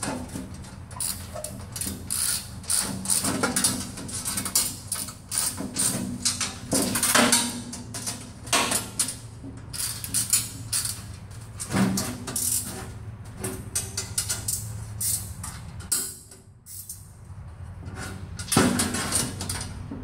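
Irregular metallic clinks and rattles of nuts, bolts and a hand tool against a steel baffle plate, as the bolts are tightened inside a steel offset smoker's cook chamber. The clinking pauses briefly about two-thirds of the way through.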